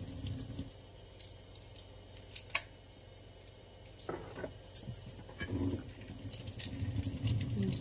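Small, scattered clicks and crackles from a hard-boiled egg's shell being peeled by hand, with soft handling sounds in between. A low, muffled sound comes in for the last couple of seconds.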